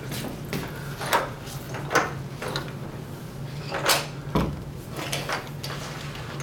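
Footsteps on a hard floor, then a series of short clicks and knocks as backboard straps and their buckles are handled, with one heavier thump a little after four seconds in.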